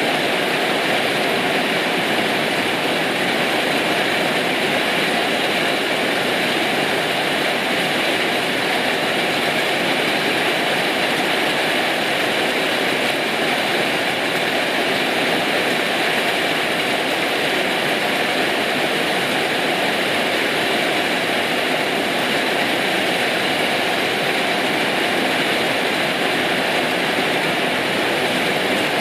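Rain falling steadily, a dense even hiss that does not let up.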